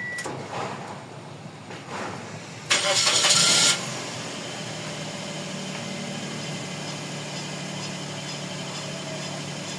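Suzuki Celerio's three-cylinder petrol engine cranked by the starter for about a second before it catches, then settling into a steady idle. The car is being checked for hard starting.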